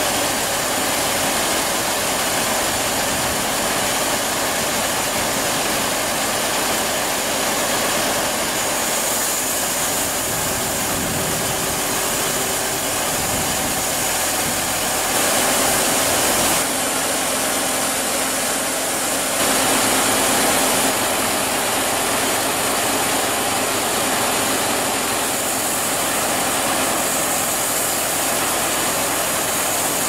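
Circular sawmill machinery running: the head saw and carriage make a steady mechanical din, with two brief louder spells about halfway through.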